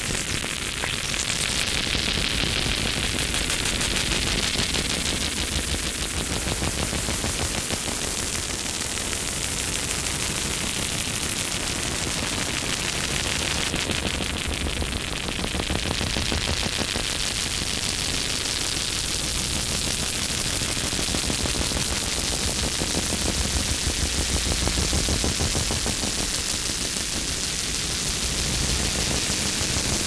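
Experimental noise music: a dense, steady wall of crackling static and hiss with a rapid stuttering, rattling pulse running through it.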